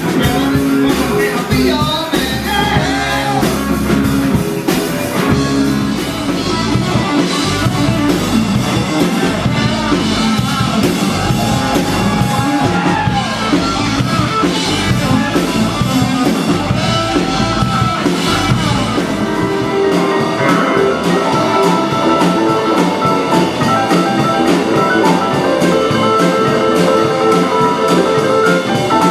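Rock band playing with drum kit and electric guitar. About twenty seconds in, the low drums and bass drop away, leaving steadier held notes.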